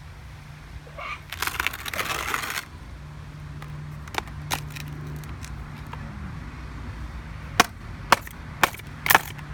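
A rattling scrape lasting about a second and a half, then near the end a run of sharp, loud hammer blows, about two a second, striking a MacBook.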